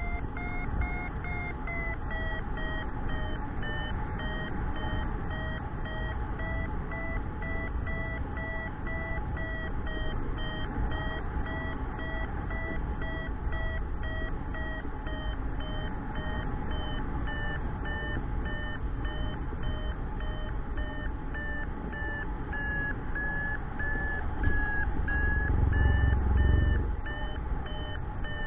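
Paragliding variometer beeping in a quick, steady run, its pitch sinking slightly over time; the beeps signal that the glider is climbing in lift. Wind rumbles on the microphone underneath and swells in a gust near the end.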